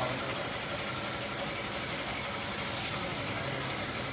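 Freshly overhauled Toyota 2C four-cylinder diesel engine running steadily at idle, heard under an open bonnet as a low engine note with a strong steady hiss over it.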